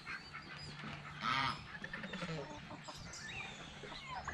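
A flock of backyard chickens and geese calling while they feed: soft chicken clucks and small chirps, with one goose honk about a second in.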